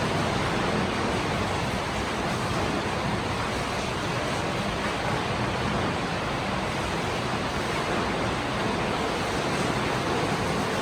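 Steady, even rain noise: a heavy rainfall hissing without a break.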